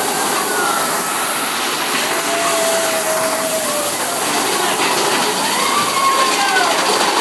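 Mine-train roller coaster running at speed: a steady loud roar of the cars on the track and rushing air, with a few thin, drawn-out high tones over it.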